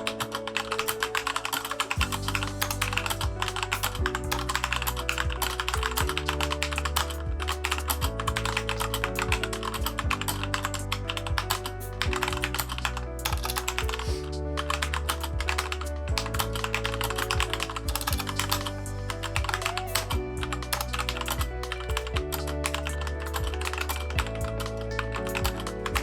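Fast, continuous typing on a Keychron K2 mechanical keyboard fitted with unlubed factory Gateron switches, a dense clatter of keystrokes. Background music with a steady bass line plays underneath.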